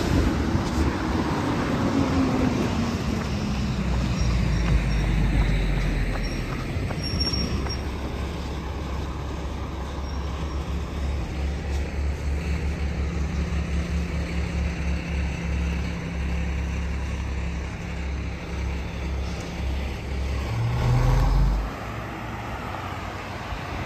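Road traffic passing on a busy road, one vehicle dropping in pitch as it goes by at the start, with a low rumble and another loud swell near the end.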